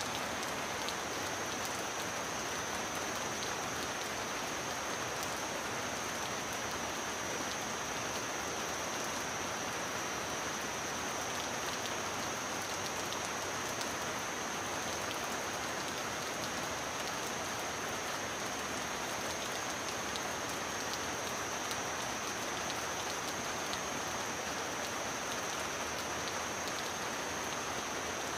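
Heavy rain falling steadily, a dense even patter of countless drops, with a thin steady high-pitched tone running beneath it.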